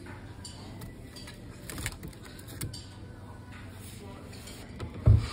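Plastic-wrapped cone ice creams rustling and clicking against each other as hands rummage through a chest freezer. A heavy low thump comes near the end.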